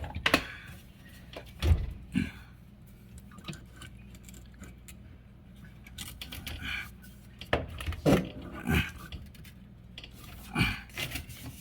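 Scattered metallic clinks and knocks, a handful of separate strikes with pauses between them, as a threaded metal part of a built-in dishwasher is worked loose by hand.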